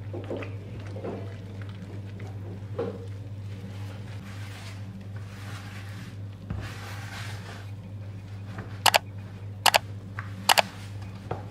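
Silicone spatula stirring flour and cold water into a wet, shaggy bread dough in a plastic bowl, scraping and squishing against the bowl. From about nine seconds in, a quick run of sharp mouse-click sound effects is louder than the stirring.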